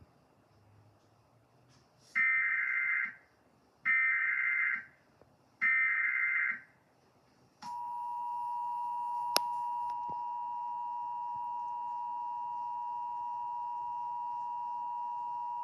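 Emergency Alert System broadcast signal: three evenly spaced one-second bursts of warbling SAME header data tones, then the steady two-tone EAS attention signal, which starts about eight seconds in and holds for about eight seconds before cutting off. A single sharp click comes partway through the tone.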